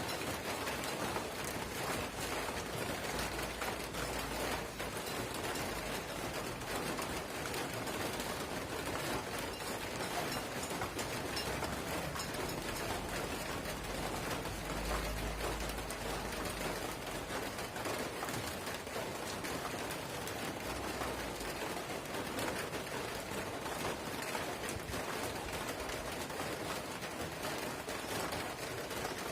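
Light drizzle pattering steadily on surfaces: a dense, even hiss of fine drops.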